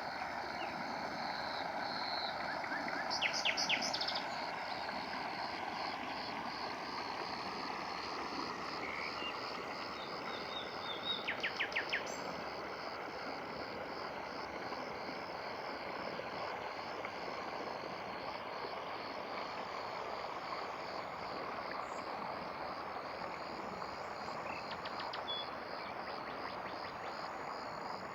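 Steady rush of running water under a continuous, pulsing high-pitched chorus, with a bird giving short runs of quick high notes about three seconds in and again about eleven seconds in.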